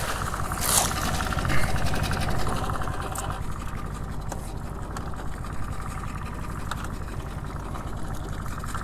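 Boat motor idling: a steady, low, even hum with a buzzy edge. A brief splash from the cast net on the water comes in the first second.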